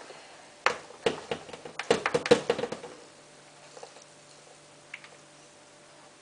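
A quick run of light clicks, knocks and patter, densest about two seconds in, then a few single taps: detergent being measured out and put into a washing machine's dispenser drawer.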